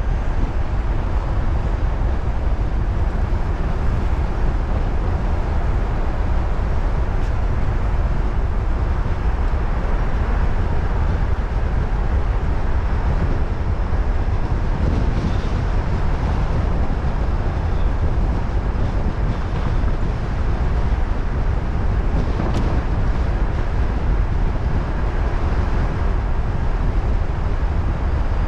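Steady low rumble of road and wind noise from a car driving, with no changes of note.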